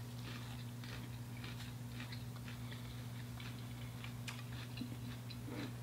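Chewing of fried alligator and other fried food: scattered small crunchy, wet mouth clicks over a steady low hum.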